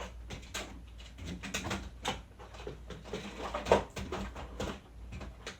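Scattered light knocks and clicks of objects being handled and put away, one sharper knock a little past halfway.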